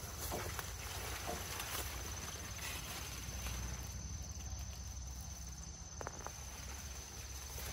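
Corn leaves rustling with a few light clicks as a person moves and crouches among the corn plants, over a continuous high insect trill.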